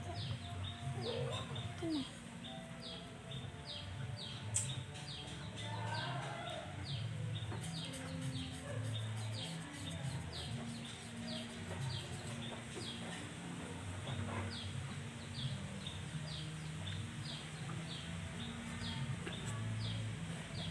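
A bird chirping over and over, short falling chirps about two a second, over a low, uneven rumble.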